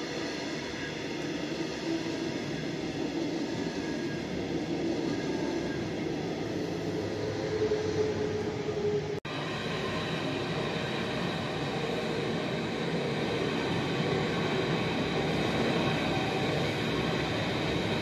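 Electric trains passing: a red double-deck regional train rolls by, then after a sudden break about nine seconds in, a Berlin S-Bahn train runs past close by. Steady rolling noise of wheels on rails with several steady high tones over it.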